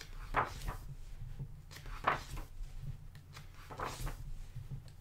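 Pages of a thick hardcover art book being turned by hand: a few short paper swishes, roughly one every second or two.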